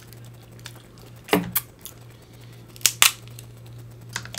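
Boiled crab leg shells cracking as they are snapped apart by hand: four sharp cracks in two close pairs, about a second and a half apart.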